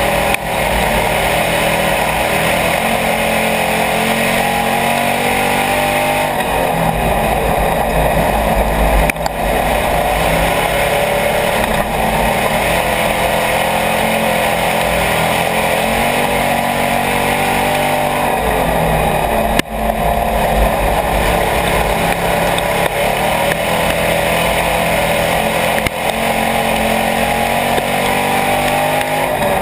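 IMCA Hobby Stock race car's V8 engine at racing speed, heard from inside the open cockpit. The engine note drops twice as the driver lifts for the turns and climbs again under throttle down the straights, with a sharp knock or two from the chassis.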